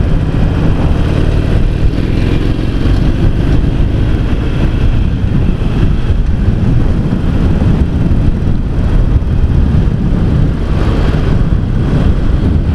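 Harley-Davidson XL883C Sportster's 883 cc air-cooled V-twin engine running steadily while the bike is ridden at road speed, with road noise over the microphone.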